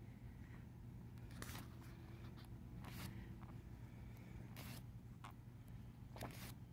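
Pages of a thick glossy photobook being turned by hand: about five short, faint paper flicks over a steady low hum.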